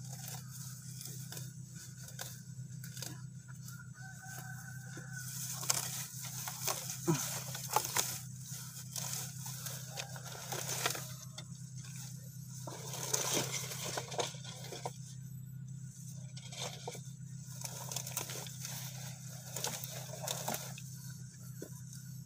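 Weeds and grass being pulled up by hand, with irregular rustling and tearing of stems and leaves, over a steady low hum.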